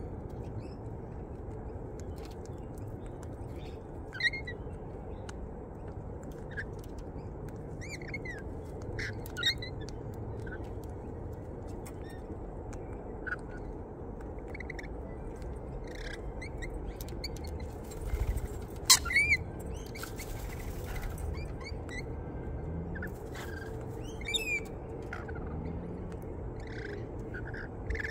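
Parrots feeding at a seed feeder, rainbow lorikeets and white cockatoos, giving short scattered chirps and calls over steady low background noise. About two-thirds of the way in comes a louder cluster of calls, with a sharp click and a brief harsh, noisy stretch.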